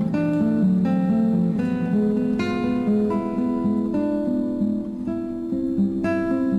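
Background music: acoustic guitar picking and strumming chords at a slow, steady pace.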